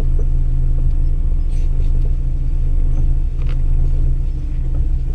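Car engine idling steadily while the steering is turned left and right with the car standing, with two faint knocks from the left front suspension; the mechanic suspects the shock absorber or the suspension arms.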